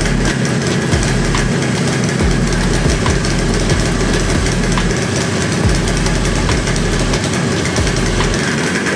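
Yamaha RD350's two-stroke parallel-twin engine idling at a fairly steady pitch, firing on both cylinders on a newly fitted CDI ignition with carburettors not yet tuned.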